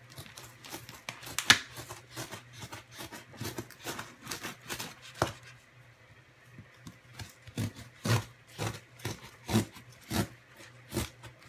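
A box cutter's blade slicing and scraping along the packing tape and cardboard of a large shipping box: a string of short, irregular scratches and rips. The sharpest comes about a second and a half in, and a quick run of them follows from about seven and a half seconds.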